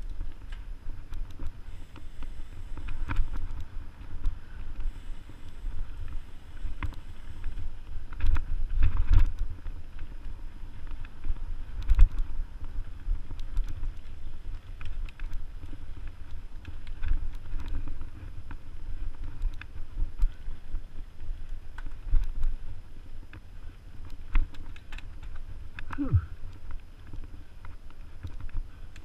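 Mountain bike riding over a dirt forest trail: a constant low rumble of tyres and motion with irregular clicks and rattles from the bike over roots and bumps, and one sharp knock about twelve seconds in.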